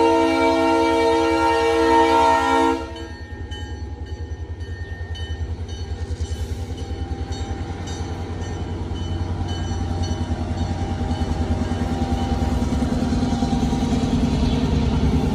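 Diesel locomotive horn sounding one long chord that cuts off suddenly about three seconds in. Then the locomotives' engines run with a pulsing low rumble as the train of empty hopper cars rolls by, growing louder toward the end.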